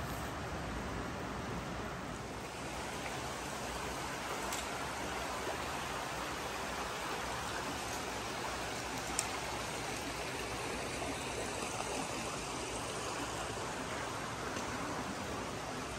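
Steady rushing of a shallow stream flowing over rocks in a narrow sandstone gorge, with one faint tick about nine seconds in.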